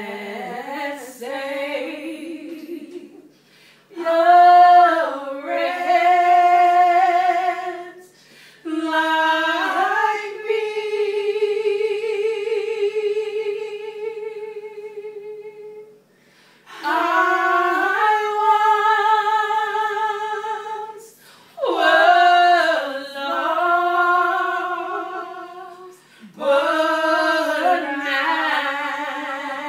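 Three women singing a cappella in phrases with short breaks between them, holding notes with vibrato, one of them held for several seconds near the middle.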